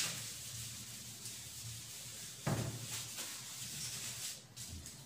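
Blackboard duster rubbing across a chalkboard, wiping off chalk writing, with a sudden louder stroke about two and a half seconds in.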